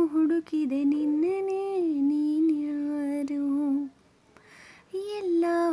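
A woman humming a slow melody unaccompanied, holding long notes that glide smoothly from one pitch to the next. She breaks off for a breath about two-thirds of the way through, then goes on humming.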